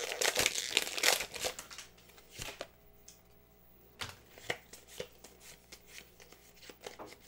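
Pokémon trading cards and a foil booster pack being handled: dense crinkling and rustling for the first second and a half, then scattered light clicks and taps of cards being flicked through.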